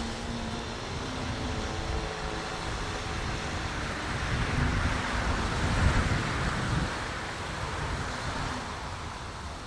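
A road vehicle passing, its tyre and engine noise swelling to a peak about six seconds in and then fading, over a low rumble of wind on the microphone.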